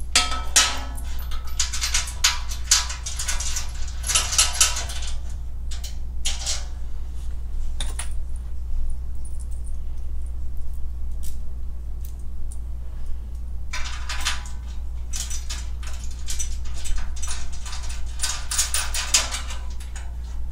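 Small bolts, nuts and a short edge guide clinking and rattling in hand as they are fitted to a folding steel welding table. The clinking comes in two spells, through the first few seconds and again in the last six or so, with scattered single clicks between, over a steady low hum.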